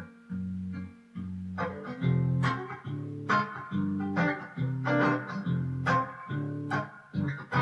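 Instrumental break in a song: guitar strummed in strokes about once a second over low sustained bass notes, without vocals.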